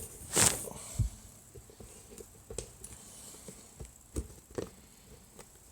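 Soft handling noises: a brief rustle about half a second in, then a few faint, scattered knocks and clicks.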